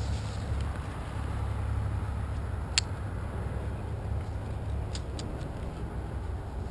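Metal carabiner on a climbing rope being handled: one sharp click about three seconds in and a few lighter clicks near the end, over a steady low rumble.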